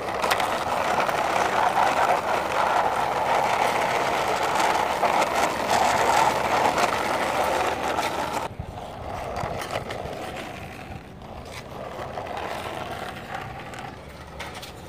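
Plastic wheels of a toy truck rolling along a rough painted concrete wall top, a steady gritty rolling rumble. About eight and a half seconds in it drops suddenly to a quieter rolling.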